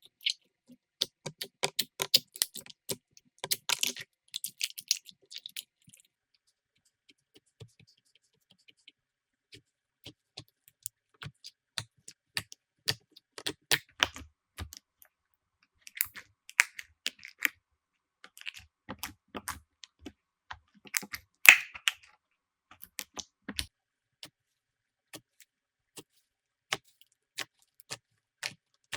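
Slime being worked, giving quick, irregular clicks and crackles. They thin out for several seconds after the start, then pick up again, with the loudest snap about three quarters of the way through.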